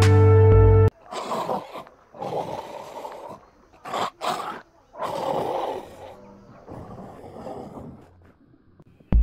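Bengal tiger calling: a run of short, rough roars, each under a second to about a second long, growing fainter towards the end. Background music cuts off just before the calls begin and comes back at the very end.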